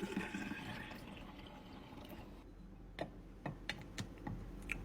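Apple cider vinegar pouring through a funnel into a glass jar, a steady stream that fades out after about two and a half seconds, followed by several light clicks.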